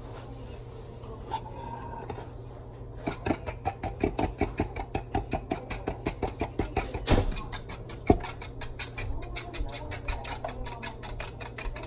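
Quick, even tapping, about four to five taps a second, starting about three seconds in, as food is worked by hand in a plastic mixing bowl. A steady low hum runs underneath.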